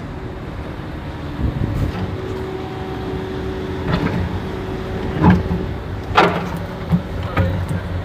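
Concrete pump running with its engine droning steadily. From about halfway through come sharp knocks, roughly once a second, while the pump feeds concrete from its hopper.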